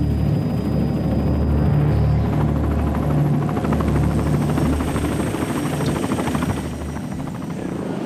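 Helicopter rotor and engine running close by, a steady low pulsing from the blades, with background music mixed under it. The low rotor sound falls away about seven seconds in.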